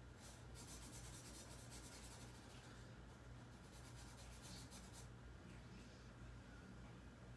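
Faint scratching of a pen on paper in quick back-and-forth strokes as a drawing is shaded in, with pauses between runs of strokes. A low steady hum runs underneath.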